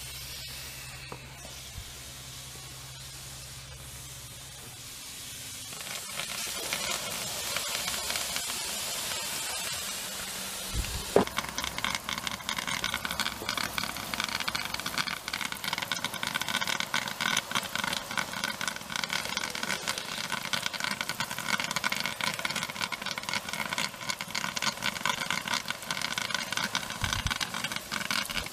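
Steady hiss from the hot aluminium and sodium hydroxide reaction inside a plastic jug reaction chamber, then from about eleven seconds a garden-hose spray nozzle spraying water onto the jug to cool it down because its pressure is climbing too high.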